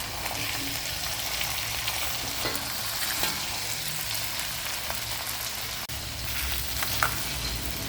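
Whole lobster sizzling as it fries in oil and butter in a large wok, being turned over, with a few sharp knocks against the pan.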